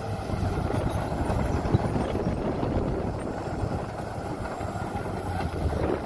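Heavy diesel earthmoving machinery running with a steady, dense rumble, with one brief knock about two seconds in.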